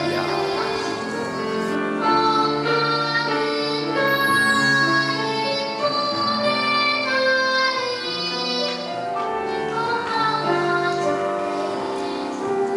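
A boy's clear treble voice singing a Korean children's song (dongyo), a melody of long held notes.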